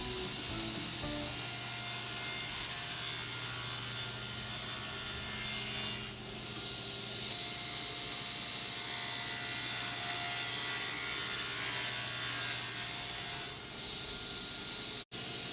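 Saw cutting through a wood panel: a steady rasping noise over a low hum, which shifts briefly about six seconds in and again near the end.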